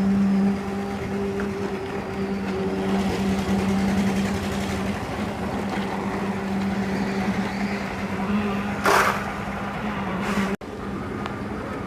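Heavy machinery engine running steadily at a concrete pour, with an even low hum. A brief burst of hiss comes about nine seconds in, and the sound drops abruptly near the end before the hum carries on more quietly.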